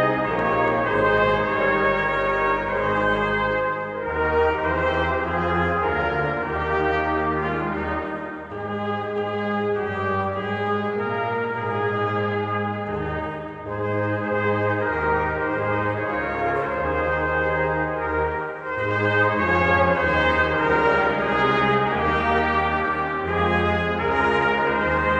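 Brass choir of trumpets, trombones and tuba playing Christmas music in held chords, in phrases with short breaks between them about every four to five seconds.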